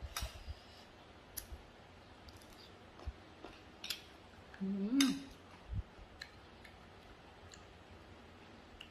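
Scattered short clicks and scrapes of a metal spoon against a ceramic plate while eating. About five seconds in there is a brief hummed 'mm' from the eater.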